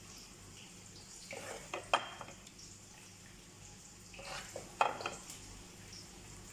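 A metal spoon scraping and clinking against cookware in two short bouts, about two seconds and five seconds in, each with a sharp clink.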